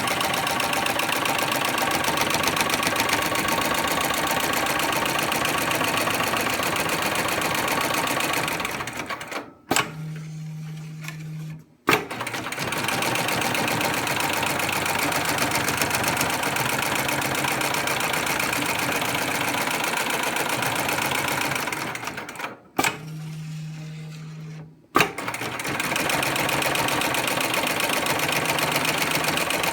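Extra-heavy-duty programmable pattern sewing machine stitching rapidly and evenly, running several programmed stitch cycles one after another. It stops twice, about ten and about twenty-three seconds in; each stop holds a short low hum for about two seconds, then a sharp click, and the stitching starts again.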